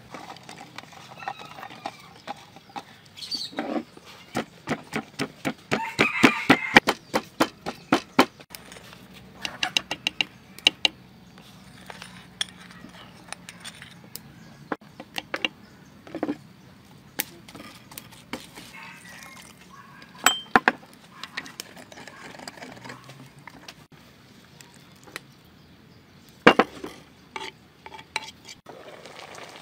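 Pestle pounding in a mortar, grinding chili and garlic for a dipping sauce: a quick run of knocks, about three or four a second, a few seconds in, then scattered knocks and clinks.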